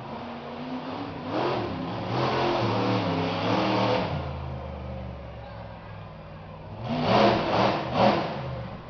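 Monster truck engine revving hard in surges for a few seconds, then dropping to a lower, steadier run. It revs up again in two loud bursts near the end as the truck launches into a jump.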